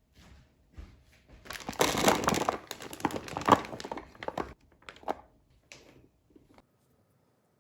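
Packaging crinkling and crackling as it is handled, densest for about three seconds from about a second and a half in, then a few light knocks.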